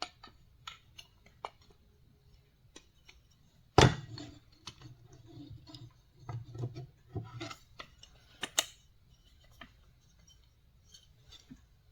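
Old wooden and metal hand tools handled and set down on a table: scattered light clicks and knocks, the loudest a sharp knock about four seconds in and another at about eight and a half seconds.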